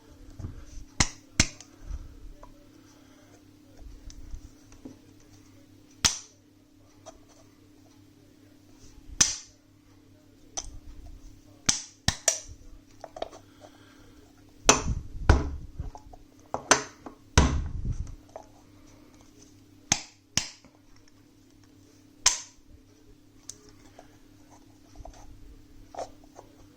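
Wooden dovetail puzzle box being smacked again and again, sharp irregular knocks, some in quick clusters, as it is jolted to drop its hidden ball bearing back into place and relock the sliding piece.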